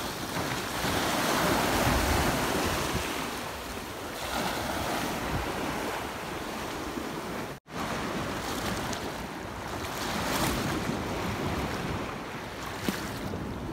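Sea waves washing and foaming over shoreline rocks, swelling and ebbing, with wind buffeting the microphone. The sound drops out for an instant a little past halfway.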